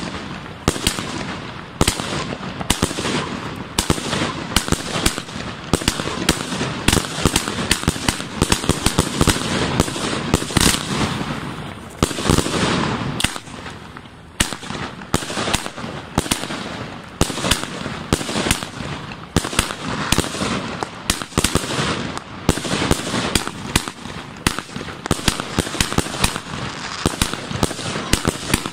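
Funke Azul 100-shot fireworks cake firing in rapid succession: a steady run of sharp shots and bursts, several a second, easing into a brief lull about halfway through before picking up again.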